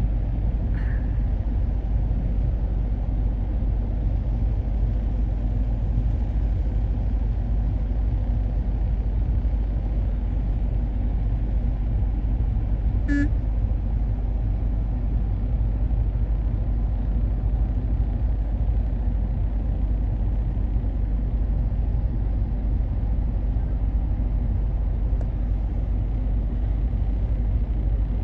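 Steady low engine rumble of a vessel, unchanging throughout, with one very short high chirp about halfway through.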